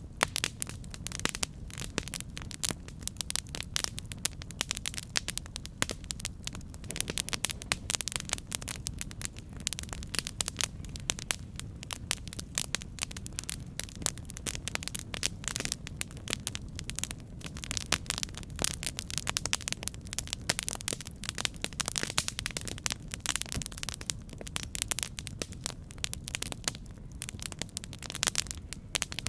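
Campfire burning: dense, irregular crackling and popping of wood over a steady low rumble of the flames.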